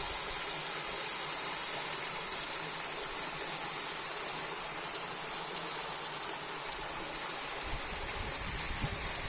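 Steady high-pitched insect chorus that holds one pitch, over a soft hiss, with a low rumble near the end.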